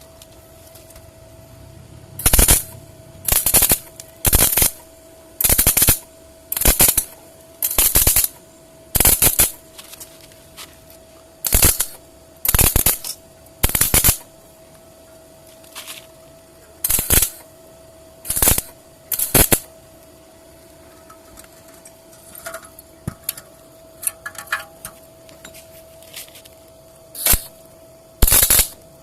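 Arc welder laying a series of short tack welds on steel: about a dozen crackling bursts, each under half a second and spaced about a second apart, with a pause in the middle, over a faint steady whine.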